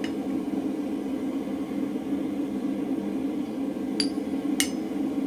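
Steady hum of a gas forge burner running. Over it, hand tools clink sharply on the hot steel bar and anvil: once at the start and twice in quick succession near the end, as a tapered drift is brought to the punched hole.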